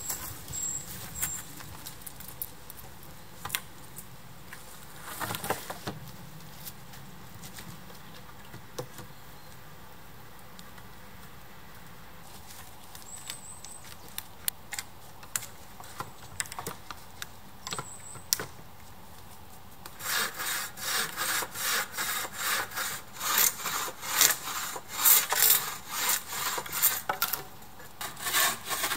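Wooden poles knocking now and then as they are handled against a log teepee frame. About two-thirds of the way in, a bow saw starts cutting a pole with steady back-and-forth strokes, louder than anything before.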